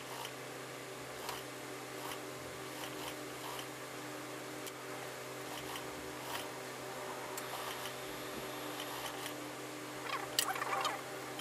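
Mink-coat fabric and fur being shifted and smoothed under an industrial sewing machine's presser foot: soft rustles and small clicks over a steady low hum. Near the end comes one louder, brief snip and rustle of small scissors trimming at the seam.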